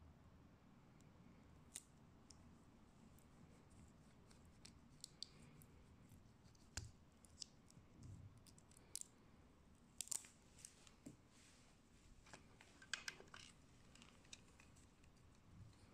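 Small plastic building bricks clicking and rattling as they are handled and pressed together, with scattered sharp clicks, the loudest about ten and thirteen seconds in.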